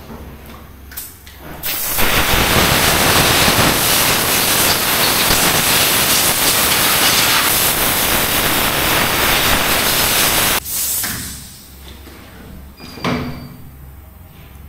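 Compressed-air gun on a coiled air hose blowing a washed motorcycle dry: a loud, steady hiss that starts about two seconds in and cuts off abruptly about ten and a half seconds in.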